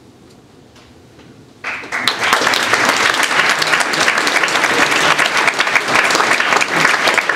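A short hush, then an audience breaks into applause about a second and a half in: many hands clapping, dense and steady.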